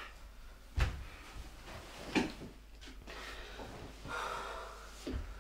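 A person's breathing and small movements: a few soft knocks and thumps, the first and loudest about a second in, and a long breath out about four seconds in.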